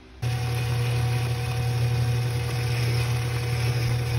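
Small belt-driven bench lathe's electric motor running with a steady hum. It starts abruptly about a quarter second in.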